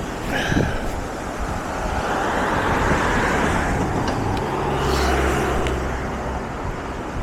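Cars passing on the road, with a swell of tyre and engine noise in the middle, over a steady low rumble of wind on the microphone.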